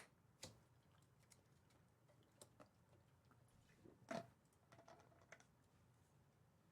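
Near silence with a few faint, scattered clicks and light taps, the loudest a little past four seconds in.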